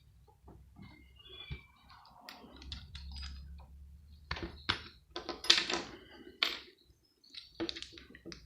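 Small clicks, clinks and scrapes of hand tools prying and pulling brass and copper parts out of a plastic multi-plug adaptor. The clicks come in quick irregular clusters in the second half, loudest about five and a half seconds in.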